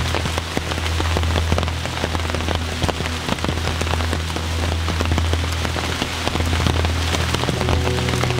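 Steady rain falling, with a dense stream of sharp individual drop hits over a constant hiss and a steady low rumble underneath.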